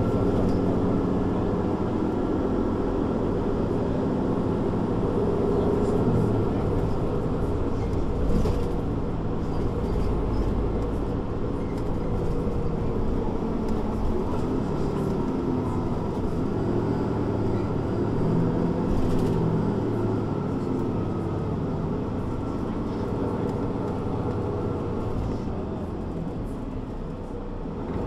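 Mercedes-Benz Citaro C2 G articulated bus under way, its engine running steadily with its note rising and falling as it drives, over a low rumble.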